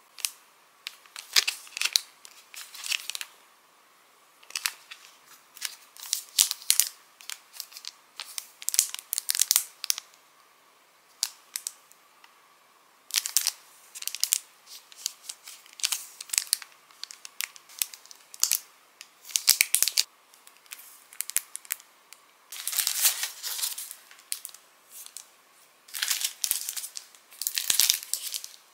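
Clear plastic packaging crinkling and rustling as it is handled, in irregular bursts with short pauses between them.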